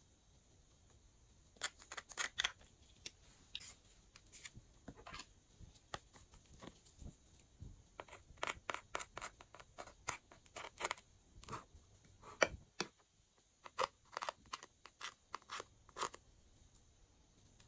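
Metal spatula scraping and picking at the pans of a plastic eyeshadow palette: a long irregular run of short, sharp scratchy clicks, starting about a second and a half in.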